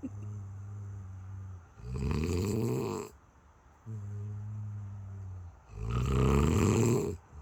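Heavy snoring in slow breaths: two loud, harsh snores about two seconds in and near the end, each lasting about a second, with a quieter breath carrying a steady low hum before each one.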